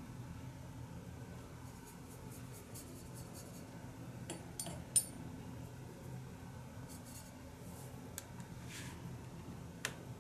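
Watercolour brush working paint in a plastic palette well: quick light scratchy ticks of the brush against the plastic, a few sharper taps and clicks in the middle and near the end. A steady low hum runs underneath.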